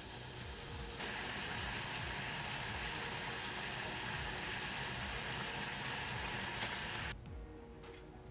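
A steady hiss that starts abruptly about a second in and cuts off suddenly near the end.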